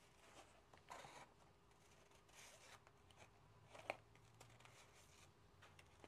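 Near silence, with faint rustling of plastic-covered diamond painting canvas cards being handled and shuffled, and one small click about four seconds in.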